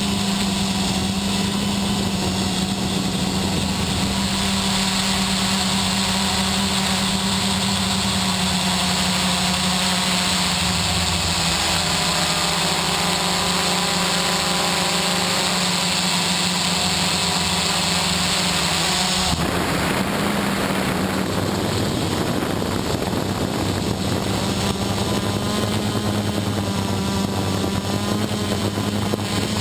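Electric motors and propellers of an XP2 quadcopter running steadily, heard close up from the camera mounted on the craft, their several pitches wavering slightly as the throttle changes. The sound changes abruptly about two-thirds of the way through.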